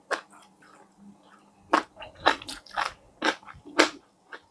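Crunching bites and chewing of crispy KFC fried chicken: a couple of sharp crunches, a pause of about a second, then a quick run of crunches.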